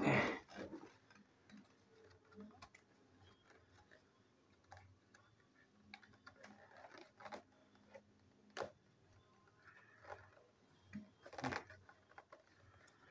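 Scissors and fingers working at the tape seal on a cardboard toy box's end flap: faint, scattered small clicks and taps, with a sharper click about eight and a half seconds in and a louder one about eleven and a half seconds in.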